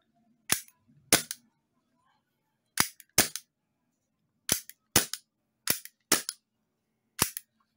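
The slide of a WE Tech G26 airsoft gas-blowback pistol being racked by hand: four quick pairs of sharp clicks, about half a second apart within each pair, as it is pulled back and snaps forward, then one more click near the end.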